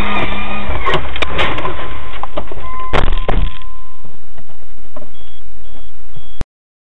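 Loud car-cabin noise recorded by a dashcam, with several knocks and clicks and a short steady tone about three seconds in. The sound cuts off abruptly near the end.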